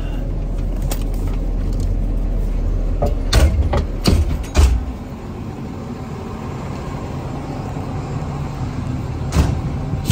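Fire engine's diesel engine running with a steady low rumble, with a few sharp knocks and clunks about three to four and a half seconds in, and one more near the end, from the crew getting down from the cab.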